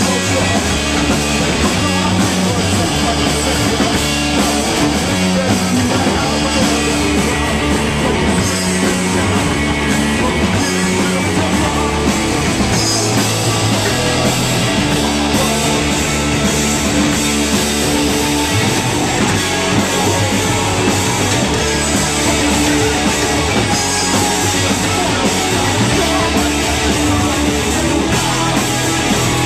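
A live rock band playing loud and steady: drums with crashing cymbals, electric bass and electric guitar.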